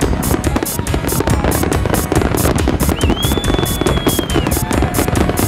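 Fireworks bursting and crackling in a large display, under loud music with a fast, even beat. A high whistle holds for about a second and a half past the middle, then drops away.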